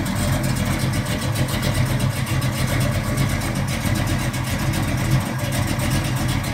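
Heavily cammed Chevrolet big-block V8, a 454 stroked to 489 cubic inches with headers, idling steadily in a 1972 Chevelle SS454.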